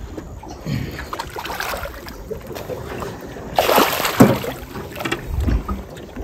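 Water splashing and knocking around a small boat, with one louder splash about three and a half seconds in.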